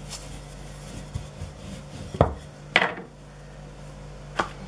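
Wooden rolling pin rolling thin dough on a floured countertop: a soft rubbing, broken by a few sharp knocks of the pin against the counter.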